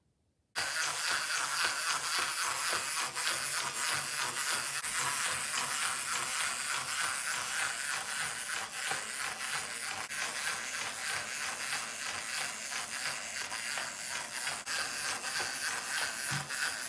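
Clockwork wind-up motor of a toy triceratops running, a fast steady whirring rattle of small gears as the toy walks. It starts suddenly about half a second in.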